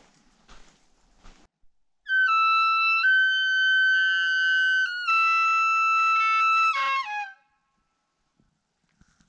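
Hunter blowing an imitation bull elk bugle on a bugle call tube: one high, whistling note of about five seconds that steps up in pitch near the start and ends with a quick drop and a short falling tail.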